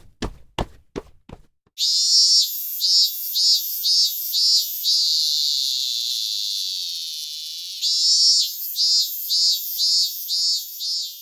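A few short clicks, then a high, thin pulsing sound, about two to three pulses a second, that holds one steady note for a few seconds in the middle before pulsing again.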